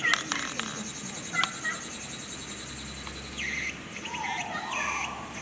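Outdoor ambience of insects trilling steadily at a high pitch, with birds chirping in short repeated calls that become more frequent from about halfway through.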